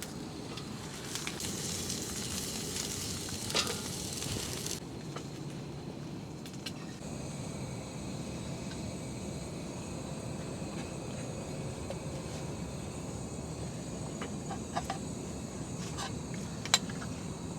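Steady hissing noise with a few light clicks and taps; it is brighter for the first few seconds and then cuts off abruptly, leaving a softer hiss.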